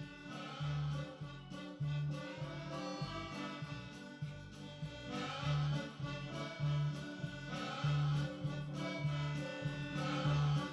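Instrumental background music with a steady bass beat and sustained melody, accordion-like in character.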